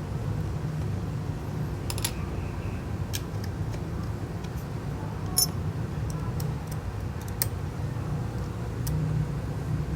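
Small sharp clicks and taps of tools on an iPhone 6s, coming every second or two at irregular intervals, over a steady low hum.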